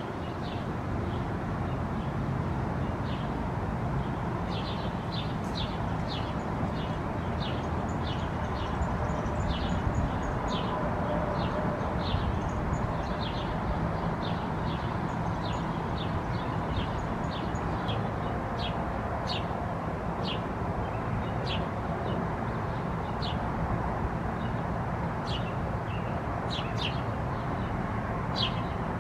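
A bird chirping: short, high chirps repeated about once or twice a second, over a steady low background rumble.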